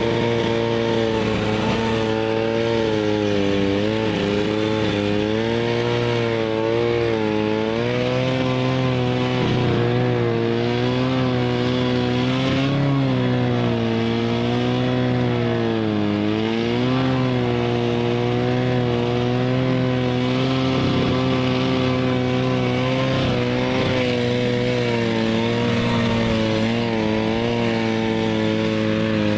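Snowmobile engine running continuously under way, its pitch rising and falling a little with the throttle.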